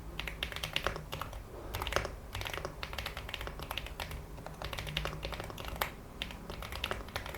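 Mechanical keyboard keys fitted with Aflion Panda tactile switches being pressed and bottoming out in a quick, irregular run of clicks and clacks. The switches are stock and unlubed, and the owner finds them scratchy.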